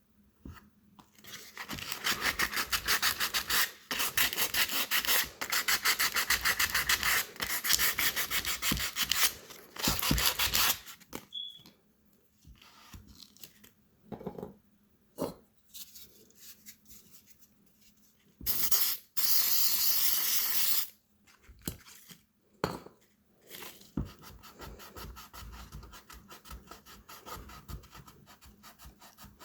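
Hand-scuffing the plastic side tank of a leaking radiator with an abrasive: rapid back-and-forth rubbing strokes that roughen the surface around the crack so the JB Weld epoxy patch will bond. The rubbing comes in long loud runs for about the first ten seconds, then in shorter bouts, with quieter scratching near the end.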